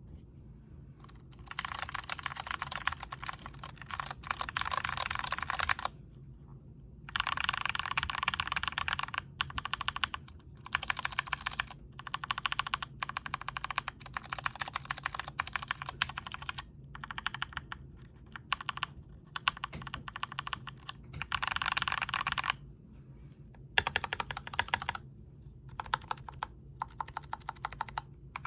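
Fast typing on a GMMK TKL mechanical keyboard with foam tape inside the case. The keystrokes come in dense runs of a second or more, broken by short pauses.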